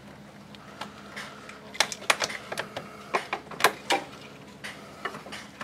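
Irregular sharp plastic clicks and taps as push-in plastic anchors holding a wiring harness are pried and worked loose from a radiator fan shroud, clustered about two to four seconds in.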